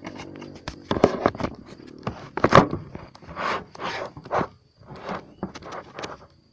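Handling noise: a run of irregular knocks, scrapes and rustles as a handheld camera is carried and set down. It stops shortly before the end.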